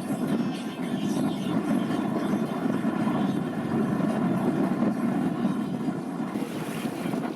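Excursion boat's engine running steadily under way, a continuous low drone.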